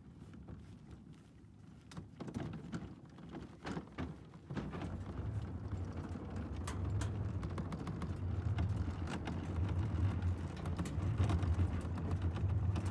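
Loaded plastic dock cart being wheeled along, its wheels clicking and knocking over joints at first, then rolling with a steady low rumble and rattle on an aluminum gangway from about four seconds in.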